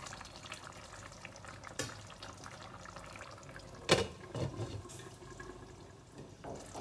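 Faint wet stirring in a pot of soft, simmering rice. Just before four seconds in, a glass lid is set down on the pot with one sharp clink, followed by a few light knocks.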